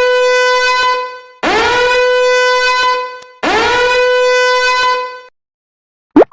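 A horn blown in three long blasts, each about two seconds, each sliding up at the start into the same steady note.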